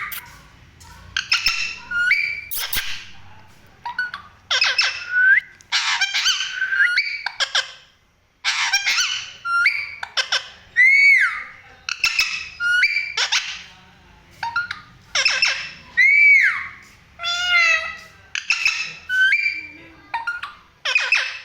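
Pet parrot calling over and over: a run of loud squawks and whistled calls, about one a second, many sliding up and then down in pitch.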